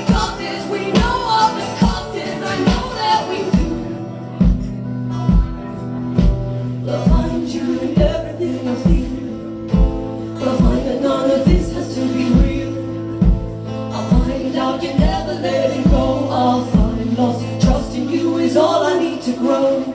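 Live band performing a song: sung vocal harmonies over guitar and held low notes, with an even low beat about twice a second. The beat stops near the end as the song closes.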